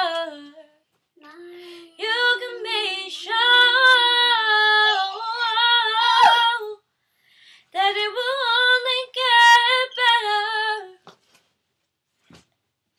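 A girl singing a cappella in long, held, wavering phrases, with a small boy's voice joining in. The singing stops about eleven seconds in.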